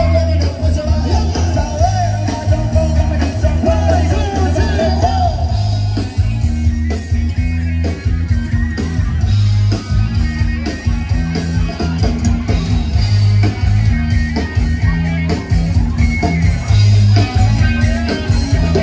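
A band playing rock-style music: a steady bass line, drums and guitar, with a wavering lead melody over the top in the first few seconds and again near the end.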